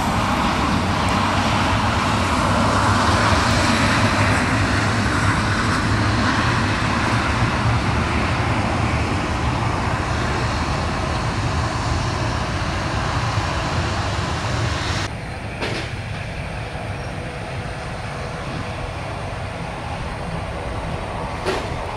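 Jet airliner engines, a loud steady rush with a deep rumble that swells over the first few seconds and then slowly fades. About two-thirds of the way through, the high hiss drops away suddenly.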